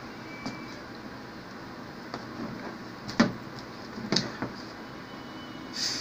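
Cardboard phone box and its tray being handled as a smartphone is lifted out: a few light knocks and taps, the sharpest about three seconds in, and a short scraping rustle near the end.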